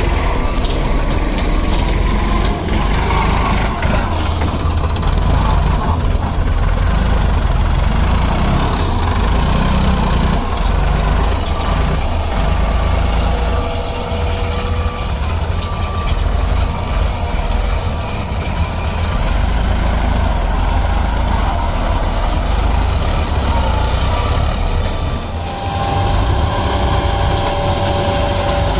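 Heavy diesel engine of a CNH sugarcane harvester running steadily under load while cutting cane: a deep, constant drone.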